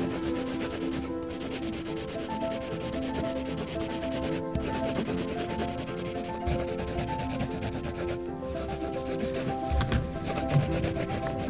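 Pencil scratching on sketch paper in quick, continuous shading strokes. It breaks off briefly about four times as the pencil lifts.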